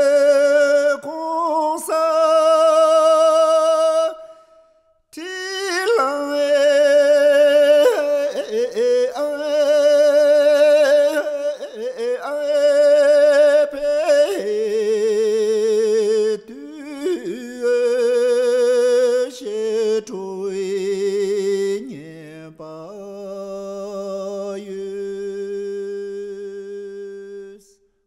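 Unaccompanied singing of a Tibetan drum-dance song: long, wavering held notes in drawn-out phrases, with a brief pause about four seconds in. The melody sits lower in the second half.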